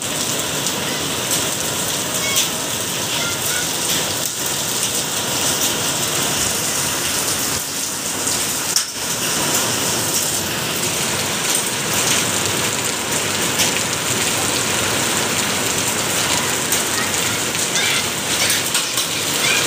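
Steady rain falling on open ground, an even hiss with individual drops ticking now and then.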